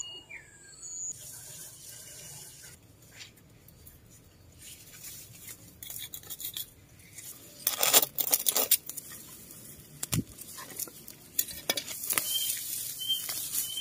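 Irregular rustling and scraping of leaves, stems and soil as hands work among garden plants, with a loud burst of rustling about eight seconds in and a single sharp knock a couple of seconds later. Birds chirp briefly at the start and near the end.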